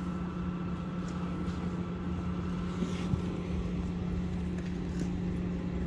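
A running engine droning steadily, with a constant low hum and rumble.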